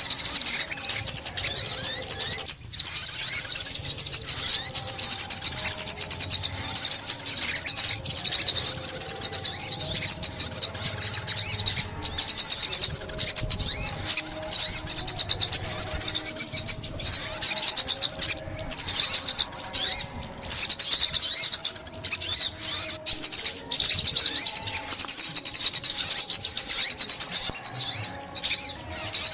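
Rapid, high-pitched chittering song of the small songbird called chim ốc mít in Vietnamese: dense runs of quick twittering notes, nearly continuous, broken by brief pauses.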